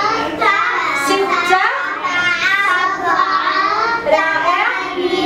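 Young children's voices singing in a classroom.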